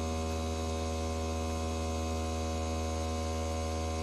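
Steady electrical hum from a homemade plastic cutter running: a low drone with a ladder of higher overtones, unchanging throughout.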